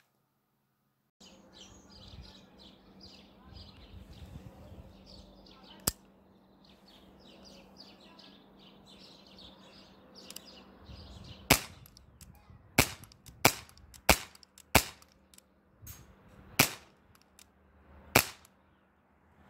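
Umarex Legends P08 Luger CO2 BB pistol firing a string of about seven sharp pops in the second half, spaced about half a second to a second and a half apart. Before the shooting starts, birds chirp in the background.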